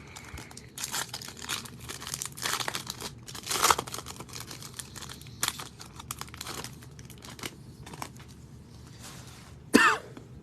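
Plastic wrapper of a trading-card pack crinkling and tearing as it is opened, in irregular crackles. There is a short cough near the end.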